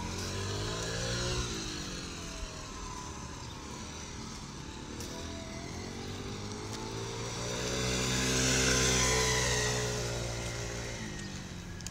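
Small motor scooter engine running as it rides past, louder and higher as it comes close and dropping in pitch as it goes by, loudest about nine seconds in.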